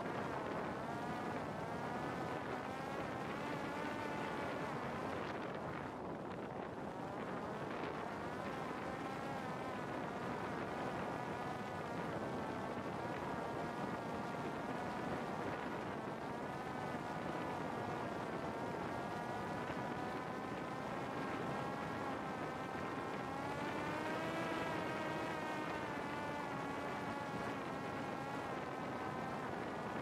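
Parrot Disco fixed-wing drone's electric pusher-propeller motor buzzing steadily in flight, its pitch wavering a little and rising briefly about twenty-four seconds in.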